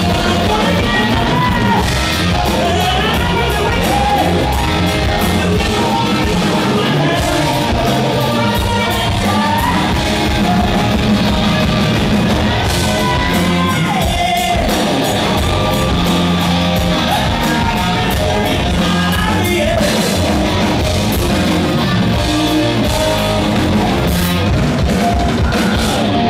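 A hard rock band playing live, with a male singer's lead vocal over electric guitars, bass and drums.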